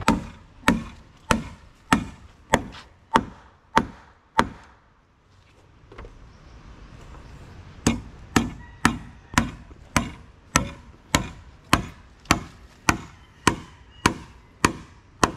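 Blows of a hand tool on boat timber, struck in a steady rhythm of a little under two a second. A first run of eight blows stops for about three seconds, then a second, longer run begins.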